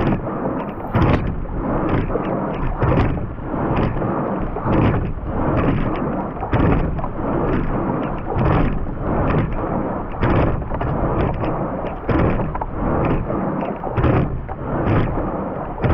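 Racing quad scull rowing at about 32 strokes a minute: a steady rush of water and wind past the rigger, with a knock from the oars and oarlocks once per stroke, about every two seconds.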